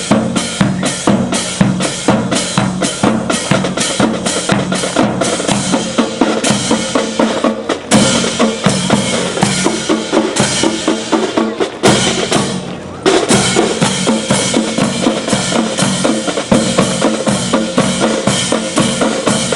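Drum-heavy music with a fast, steady beat of bass and snare drum. It thins out briefly about twelve seconds in, then the beat comes back in full.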